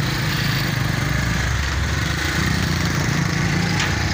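Motorcycle engine running steadily on the move, with a steady rushing noise over it.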